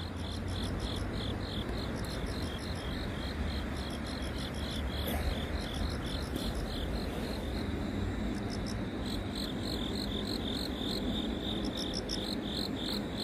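Insects chirping in a steady rhythm, about three to four high chirps a second, fading a little in the middle and stronger again near the end, over a steady low background noise.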